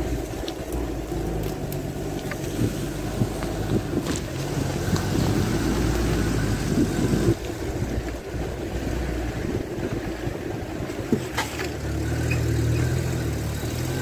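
UAZ off-road vehicle driving slowly over a rough, overgrown track: the engine runs with a steady low hum that rises a little near the end, and a few sharp knocks and rattles come from the body and suspension over the bumps.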